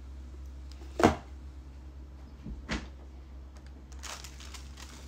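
Two sharp knocks about a second and a half apart as food containers are set down on a tabletop, the first the louder, then packaging rustling from about four seconds in.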